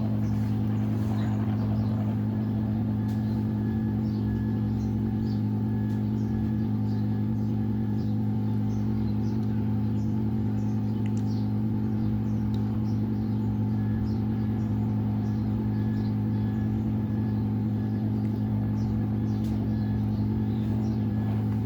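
Steady low electrical hum, with faint small ticks and clicks over it.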